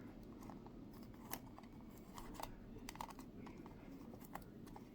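Faint, scattered clicks and rustles of a small case of trading cards and its tape being handled and picked open.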